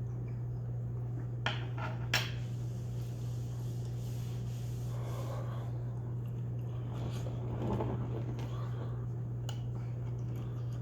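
Two light clicks of tableware, a shot glass or spoon set against a hard surface, about a second and a half and two seconds in, followed by soft rubbing and handling noises, over a steady low electrical hum.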